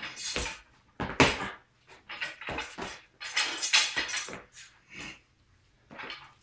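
A heavy all-iron guan dao spun and swung through the air: a string of sharp whooshes mixed with knocks, clatter and foot stamps on a concrete floor. The loudest thud comes about a second in.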